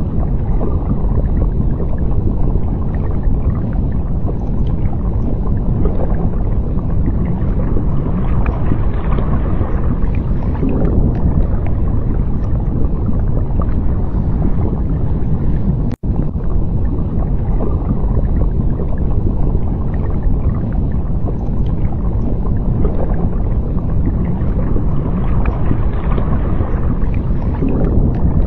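Underwater ambience: a steady low rumble and wash of moving water that swells and eases every few seconds, with a momentary cut-out about sixteen seconds in.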